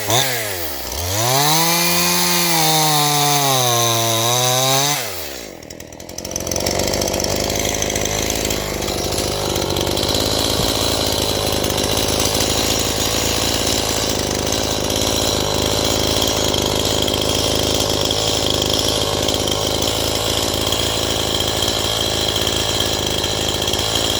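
Stihl MS181 two-stroke chainsaw at work. For the first five seconds the engine pitch swings up and down as it cuts. It dips briefly, then runs on steadily at high revs with a rattling, ticking chain noise.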